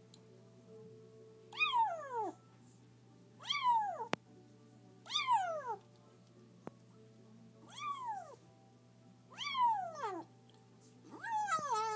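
Very young kitten crying: six high mews, each falling sharply in pitch, one every couple of seconds.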